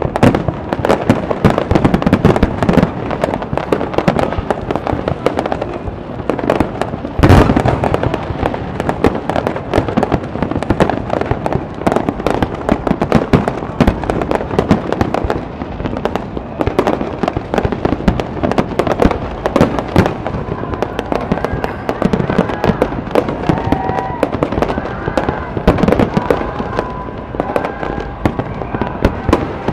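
Aerial fireworks display: a continuous, irregular barrage of bangs and crackles, with one especially loud bang about seven seconds in.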